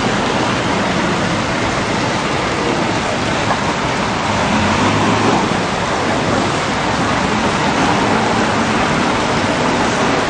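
Heavy rain pouring onto a flooded street in a loud, steady hiss.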